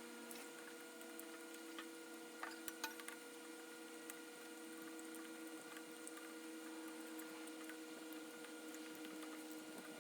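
Allen wrench tightening the bolts of a new mini bike sprocket: a few faint metal clicks and ticks, clustered about two and a half to three seconds in with one more a second later, over a steady faint hum.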